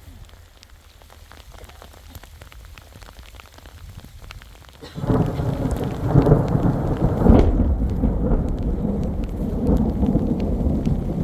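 Rain falling, then thunder that breaks in suddenly about five seconds in and rolls on loud to the end.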